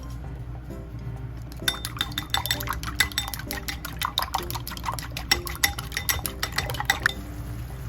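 A utensil clicking and scraping against a bowl in quick, irregular taps, starting a couple of seconds in and stopping about a second before the end, over soft background music.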